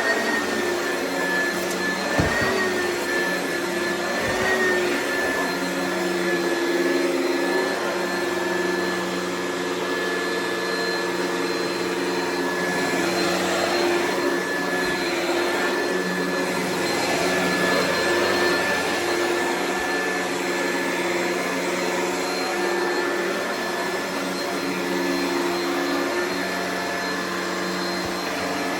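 Oreck vacuum cleaner running steadily, a high motor whine over a lower hum, with slight brief dips and wobbles in pitch.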